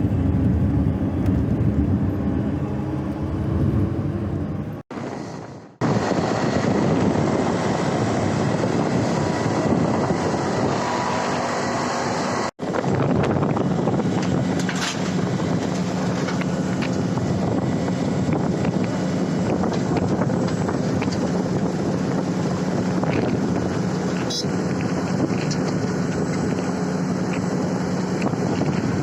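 Motor vehicle engine running steadily with wind noise, broken twice by abrupt short gaps.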